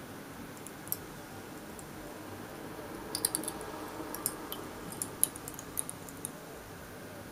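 ABS print cooling on a PEI-coated glass 3D-printer bed, cracking and creaking as it shrinks and pulls away from the surface: irregular sharp little clicks and pops, a quick cluster about three seconds in. This is the print self-releasing from the bed as it cools.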